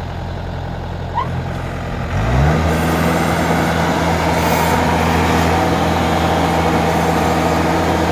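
Yanmar AW70GV combine harvester's diesel engine running steadily, then revving up about two seconds in and holding at a higher speed. The unloading auger is running and discharging threshed paddy.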